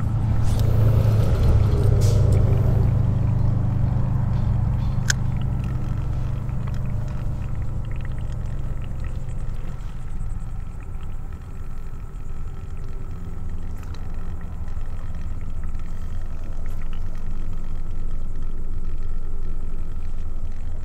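Steady low rumble, loudest in the first few seconds, with a rushing hiss as a spinning rod is cast near the start and a single sharp click about five seconds in.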